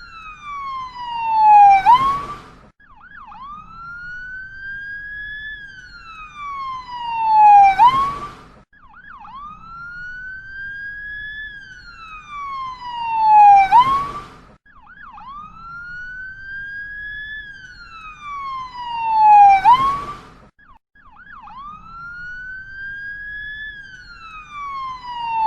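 Ambulance siren in a slow wail: the pitch rises for about four seconds, then drops more quickly and is loudest near the bottom of each fall, repeating about every six seconds.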